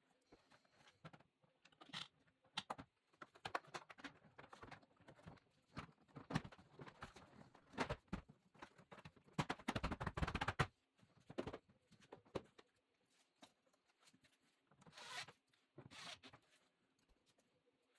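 Plastic interior door trim panel being handled and fitted back on: irregular clicks, scrapes and rustling, busiest about nine to ten seconds in.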